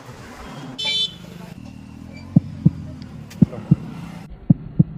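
A short vehicle horn toot about a second in, then dull thumps in pairs, roughly one pair a second, over a low steady hum.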